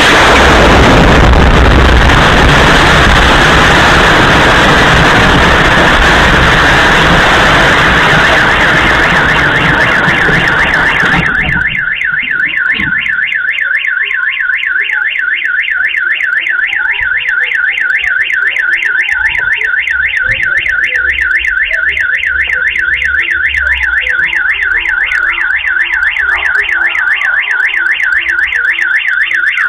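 A sudden, very loud explosion whose roar runs on for about eleven seconds; as it dies away, a car alarm is left warbling in a fast, steady cycle.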